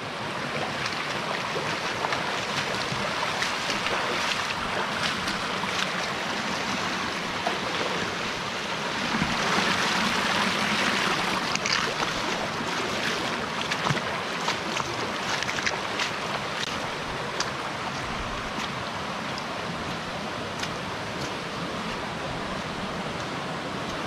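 Steady rushing of a waterfall cascading into a river pool, swelling louder for a few seconds around the middle.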